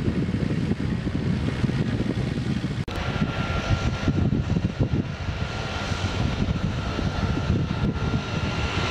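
Cirrus SR20's single piston engine and propeller running at taxi power. After a cut about three seconds in, a Beechcraft King Air 200T's twin turboprops are heard taxiing, with a steady high turbine whine over the propeller noise.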